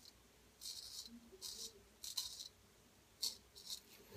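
Gold Dollar 800 straight razor scraping through lathered stubble, five short, faint rasping strokes.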